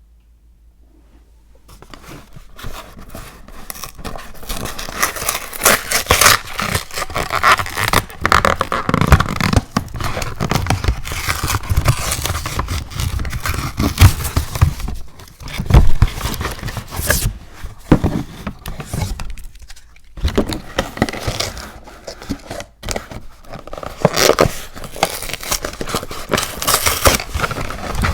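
Close-up scraping, crinkling and tearing handling sounds: a dense run of quick rustles and scrapes that begins about two seconds in.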